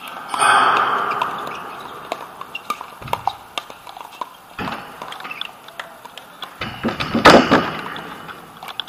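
Pickleball paddles striking a plastic pickleball in a rally: repeated sharp pops, with fainter pops from games on nearby courts. There are two louder rushes of noise, one just after the start and one about seven seconds in.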